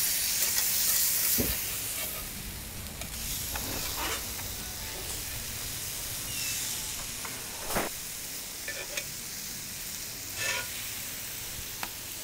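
Beef burger patties sizzling on a hot cast-iron griddle plate. The sizzle is strongest in the first couple of seconds, and it is broken by a few clinks and scrapes of a metal fork and spatula on the plate and a sheet tray.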